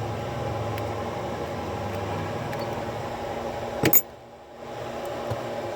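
Steady background hum and hiss, with one sharp click about four seconds in as small lock parts are handled on the bench.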